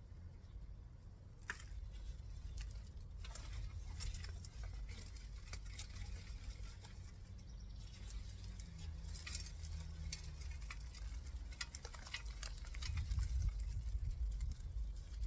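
Soil rustling and crumbling with scattered small crackles, as potatoes are dug out of a garden bed by hand, over a steady low rumble.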